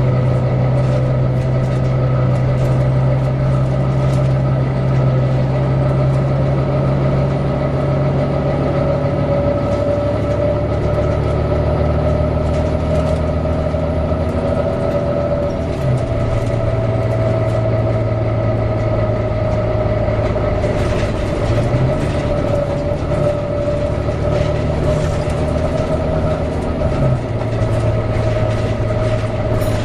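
Volvo B9TL double-decker bus running, with the cooling fan's steady high whine over the engine note. The engine note shifts pitch a few times, with light rattles throughout.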